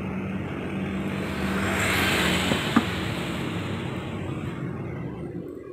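A motor vehicle passing on the road, its noise swelling to a peak about two seconds in and fading away near the end, over the steady noise of a street-food wok stall. A single sharp metal clank, the spatula striking the wok, comes just before three seconds.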